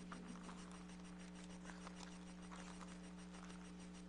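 Faint rustling and light ticks of Bible pages being turned, over a steady low hum.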